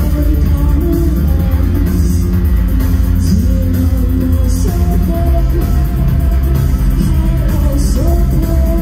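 A live electronic darkwave band: a woman's voice singing long held notes over heavy bass and keyboards, in a rough-sounding audience recording.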